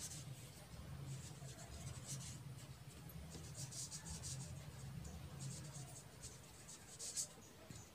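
A pen writing on a sheet of paper: irregular short scratchy strokes, one louder stroke near the end, over a faint low hum.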